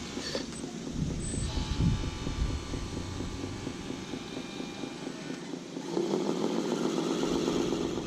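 Radio-controlled truck's motor and gears whining steadily, getting louder about six seconds in.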